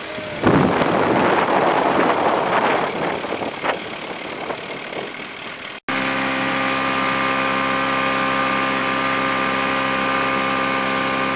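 Rushing wind and water noise for about the first half, then, after a sudden cut, a motorboat's engine running steadily at constant speed while towing a rider, heard from aboard the boat.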